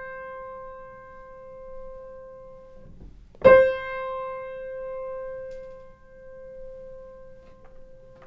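Grand piano: a single note decaying, then the same note struck again about three and a half seconds in and left to ring, this time with the una corda soft pedal down so the shifted hammer strikes only two of the three strings, for a warmer tone and softer attack.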